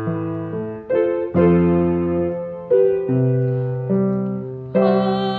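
Solo piano playing slow, sustained chords, a new chord struck about every second or so.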